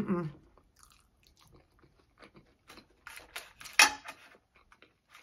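Close-miked chewing and wet mouth sounds of a person eating a mouthful of loaded steak asada fries. A cluster of mouth noises comes about three seconds in, with one sharp click near the end of it.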